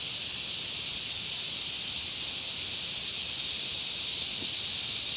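A dense chorus of insects calling at a country pond: a continuous, even, high-pitched shrill buzz with no pauses.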